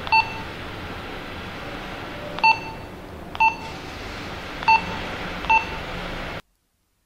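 Key-press beeps from Retevis RT33 walkie-talkies as their buttons are pressed to set the channel: five short beeps, all the same pitch, at uneven intervals over a steady hiss. All sound cuts off abruptly near the end.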